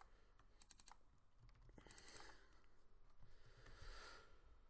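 Near silence with a few faint computer keyboard clicks, in two short clusters near the start and about a second in.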